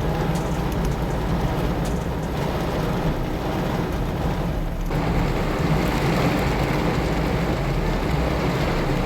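Rain pelting a moving car, with steady engine and road drone beneath it; the rain noise grows heavier about five seconds in.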